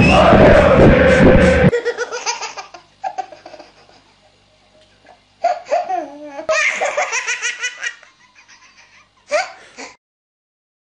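Loud stadium crowd singing over music cuts off abruptly under two seconds in. A baby then laughs in several separate fits of belly laughter with short pauses between them.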